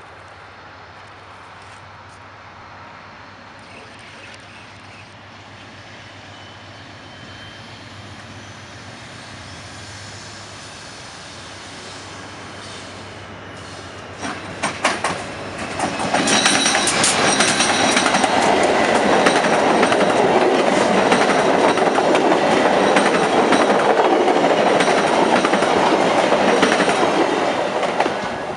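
VIA Rail passenger train, led by a GE P42 Genesis diesel locomotive, approaching and passing at speed. A low rumble grows slowly, sharp clicks of wheels on rail joints come about halfway through, then the locomotive and coaches go by loudly with wheel clatter and a thin high-pitched ring from the rails. The noise falls away near the end as the last coach passes.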